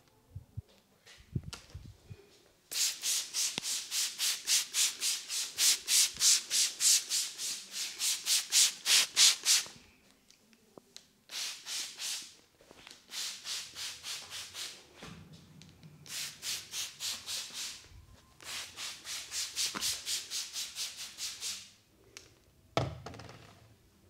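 Fingertips rubbing briskly through hair on the scalp in a head massage: a rapid rhythmic rasp of about three to four strokes a second, in several bouts with short pauses. A dull thump near the end.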